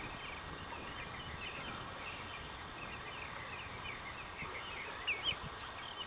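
Many birds chirping and twittering in a busy, continuous chatter over a faint steady hiss, with a couple of louder chirps about five seconds in.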